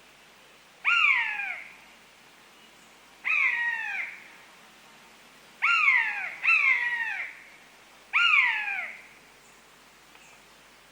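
Common buzzard calling: five short cries, each sliding down in pitch, the third and fourth close together.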